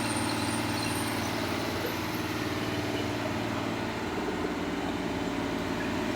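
Engine-driven air compressor running steadily.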